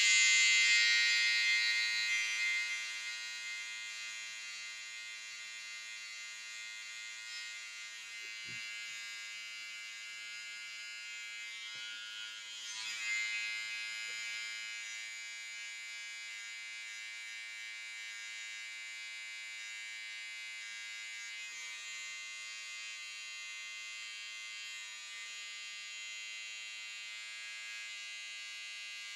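Remington battery-powered electric eyebrow razor buzzing steadily with a high-pitched whine as it trims brow hairs. The buzz is loudest in the first couple of seconds and swells briefly about 13 seconds in.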